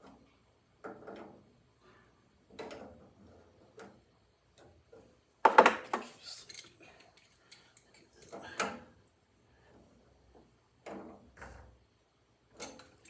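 Irregular light metal clanks and rattles as a gas water heater's burner assembly and access plate are handled and fitted back into place; the loudest knocks come about halfway through and again a few seconds later.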